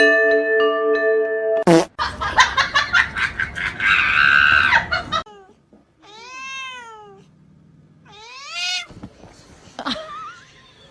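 Cat meowing twice, in long calls that rise and fall in pitch, after a loud, rough noisy stretch of a couple of seconds.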